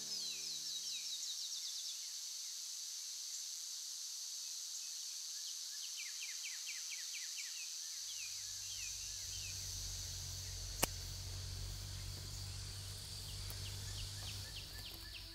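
Countryside outdoor ambience: a steady high insect drone, with a bird's rapid trills of quick falling notes coming a few times. A low rumble comes in partway through, and there is a single sharp click a little later.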